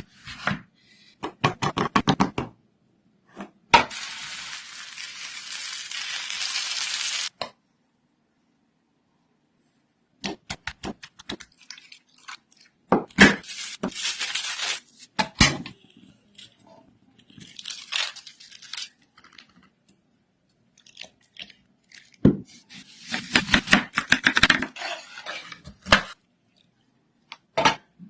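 Food-preparation handling sounds: clusters of taps, knocks and clatter of dishes and utensils. About four seconds in there is a steady hiss lasting roughly three and a half seconds. It cuts to dead silence for a few seconds, then more clatter follows in several short bursts.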